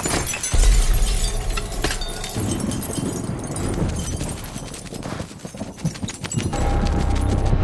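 Film sound effects for a large mechanical creature: a heavy low thud about half a second in, then scattered clattering and tinkling of falling debris, and a low rumble setting in near the end.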